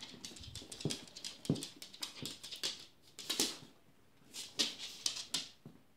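A small dog whimpering in two short rising whines, with a few short breathy sounds later on.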